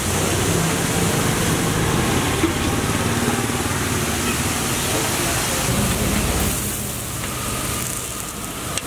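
Busy street ambience around a food stall: a steady mix of traffic and engine noise with background voices. The noise eases off for a couple of seconds near the end.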